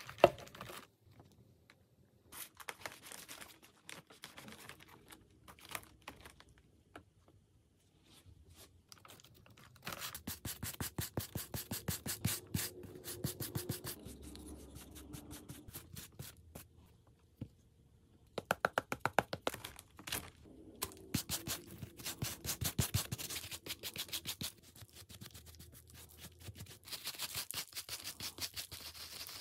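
Bristle brushes scrubbing the surface of a chicken of the woods mushroom, first a pastry brush and then a stiff round scrubbing brush. The strokes come in runs of quick, repeated scratches with short pauses between.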